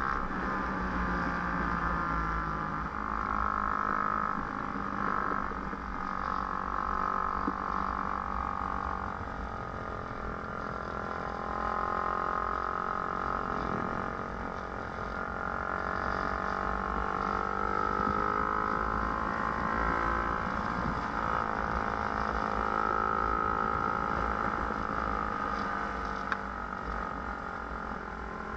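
Small motorbike engine running as it follows the downhill skater, its pitch drifting slowly up and down with the throttle, over low wind rumble on the microphone.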